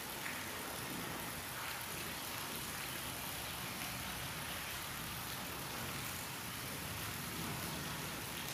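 Steady, even hiss of background noise with no speech, its level unchanging throughout.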